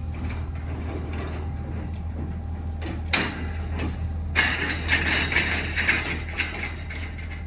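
Machinery running with a steady low hum. There is a sharp clack about three seconds in, then a rougher, higher mechanical rattle for about two seconds.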